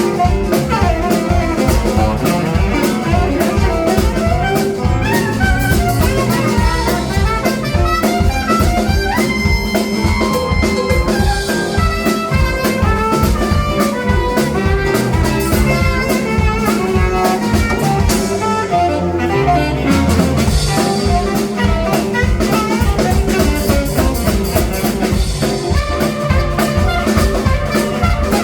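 A live blues band playing an instrumental passage with no vocals, the drum kit keeping a steady beat under the lead instruments.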